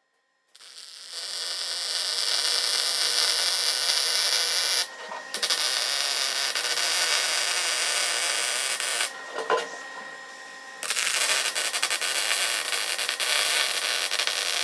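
Welding arc on sheet steel: three runs of a few seconds each, separated by short breaks, each a steady crackling hiss.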